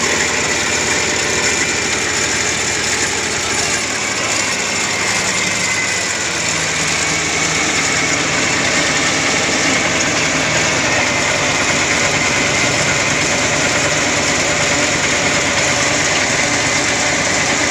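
Mini combine harvester running: its engine and machinery make a steady mechanical noise, and the engine note shifts about six seconds in.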